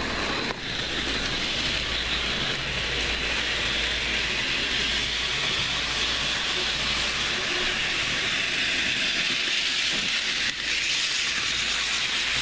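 Bachmann Ben model locomotive running fast along its track, its small electric motor and wheels making a steady, high hissing whir.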